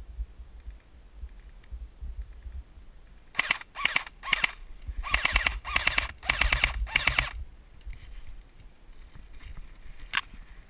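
Airsoft gun firing seven short bursts of rapid shots, each a fast rattle of clicks, over about four seconds starting some three seconds in, then a single shot near the end.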